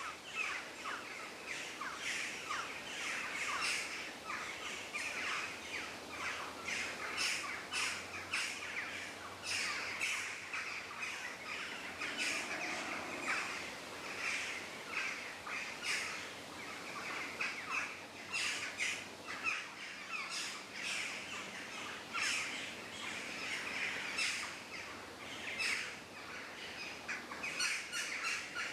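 Forest ambience of many birds chirping and calling at once, a dense, unbroken chorus of short high chirps and trills over a faint steady hiss.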